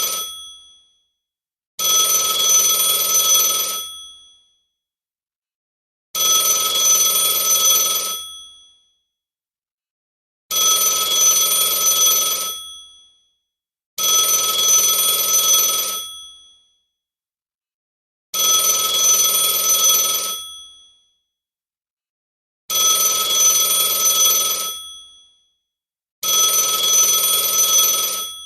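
Telephone ringing in a repeating pattern: about two-second rings, each trailing off, with roughly two seconds of silence between them, seven rings in all.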